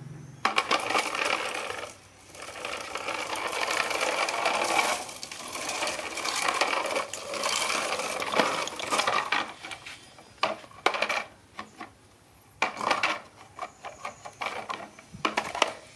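Plastic toy truck pulled on a rope over rough concrete, its hard plastic wheels rolling and rattling in a steady clatter for most of the first ten seconds. After that it comes in short bursts of clicks and knocks, with quieter gaps between.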